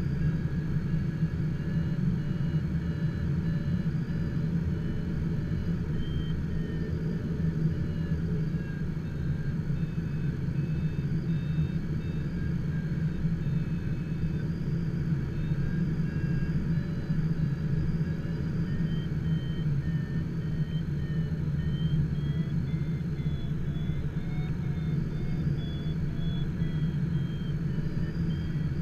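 Steady low rumble of airflow in the cockpit of an HK-36 Dimona motor glider gliding with its engine shut down and propeller stopped. A faint high tone wavers slowly in pitch throughout.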